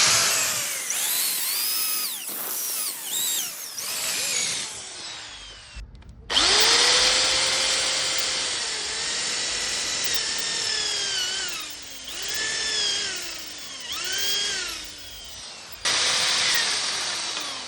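Handheld power tool motor running in three long stretches, with short breaks about six and sixteen seconds in. Its whine sags in pitch and recovers again and again as it bites into the wood under load.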